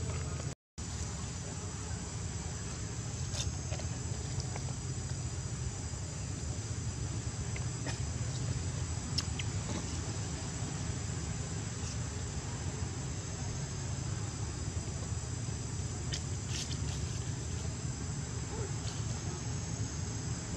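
Outdoor ambience: a steady high insect drone over a steady low rumble, with a few faint scattered clicks. The sound cuts out for a moment near the start.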